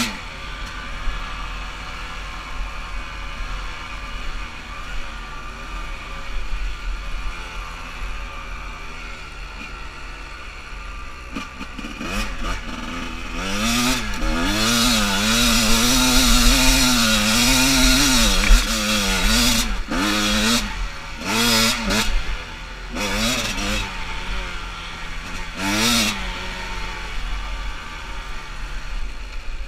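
Kawasaki KDX200 two-stroke dirt bike engine with an FMF expansion-chamber pipe, ridden up a rocky hill: it runs at low revs for about ten seconds, is held at high revs for several seconds from about twelve seconds in, then is opened and closed in short bursts and eases off near the end.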